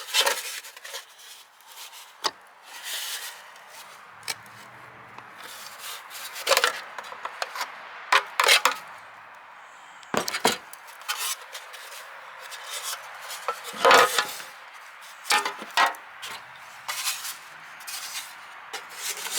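Hatchet banging on a bent metal downspout piece to straighten it out: irregular knocks a second or several seconds apart, with scraping and handling noise between them, the loudest about fourteen seconds in.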